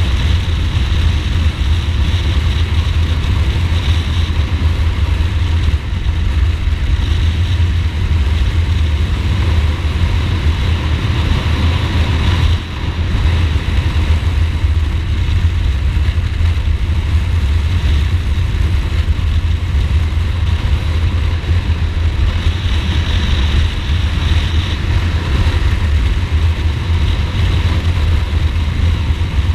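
Ducati Multistrada motorcycle engine running steadily under way, with a steady hiss of wind over it. The sound dips briefly about thirteen seconds in.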